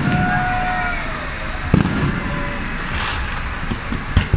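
Fireworks display: aerial shells bursting with sharp bangs, three loudest about two seconds apart, over a continuous hiss and crackle from the ground-fired effects and burning stars.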